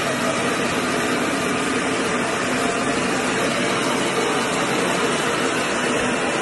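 Small combined rice mill running while milling rice. It makes a steady, even machine noise with a low hum underneath, its blower pushing bran out through the cyclone.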